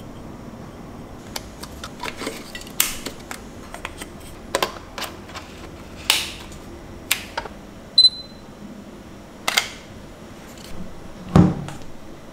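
Sharp clicks and clacks from a Sony Alpha 7 IV mirrorless camera and its lens being handled: the lens and hood being fitted and the controls worked. A short electronic beep about eight seconds in, and near the end a dull thump as the camera is set down on the table.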